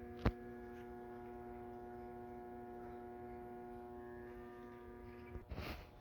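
Steady electrical mains hum, a buzz pitched on 120 Hz multiples, with one sharp click about a quarter second in. The hum cuts off about five and a half seconds in, followed by a brief rustle.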